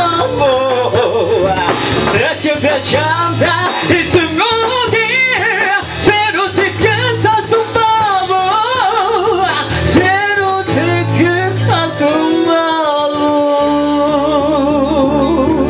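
Live band music: a singer's fast, wavering vocal runs over acoustic guitar and drum kit, settling into a long held note near the end.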